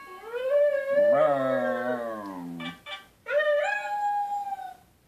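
Wire-haired fox terriers howling: two long, wavering howls with a short break about three seconds in. In the first howl a higher and a lower voice overlap.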